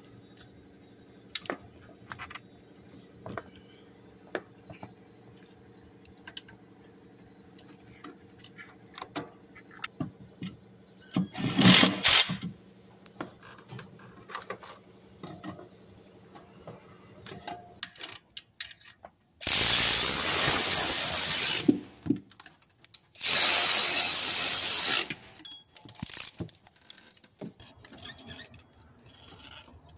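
Cordless power ratchet running in two even bursts of about two seconds each, driving in the alternator's mounting bolts. Around it, scattered clicks and clanks of parts and tools being handled, with one short loud clatter about a third of the way through.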